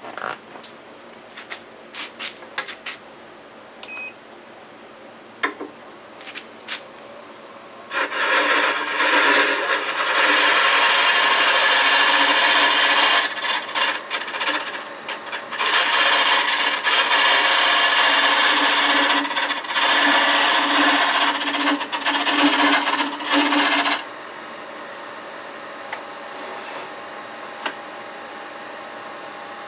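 A turning tool cutting a spinning walnut handle blank on a wood lathe, a loud rasping scrape in two long passes with a short break between, after a few light clicks of handling. Near the end the cutting stops and the lathe runs on with a quieter steady hum.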